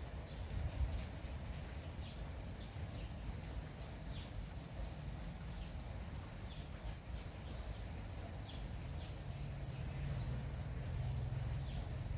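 Birds chirping in short, repeated calls throughout, over a soft even hiss and a steady low rumble.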